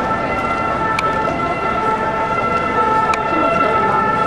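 Church pipe organ holding a steady chord of several sustained notes during a mass, over the murmur of a crowd.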